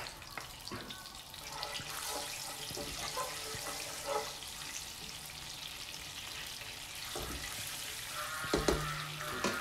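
Cumin seeds and asafoetida sizzling in hot oil for a tadka, stirred in a nonstick kadhai with a spatula, with a few light taps. The sizzle grows stronger about two seconds in.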